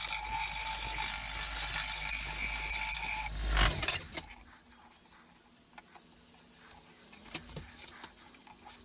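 A turning tool cutting a spinning burl bowl on a wood lathe, across a patch of epoxy resin and honeycomb aluminium: a loud steady scraping with a high ringing. The cut stops sharply about three seconds in, leaving quiet with a few light clicks.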